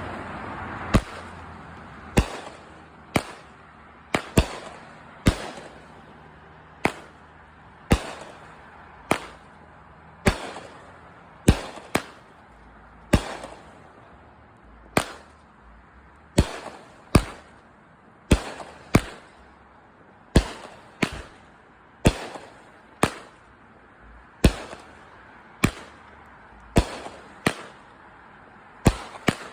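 Consumer firework cake (multi-shot repeater) firing shot after shot: about thirty sharp bangs, roughly one a second, each trailing off in a short rumbling echo.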